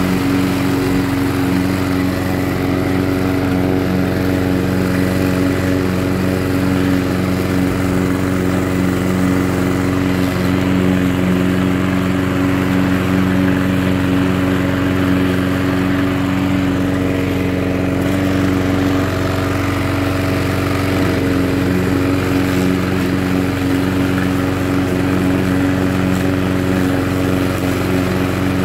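Webb petrol walk-behind lawnmower running steadily while cutting long grass, its engine note holding an even pitch throughout.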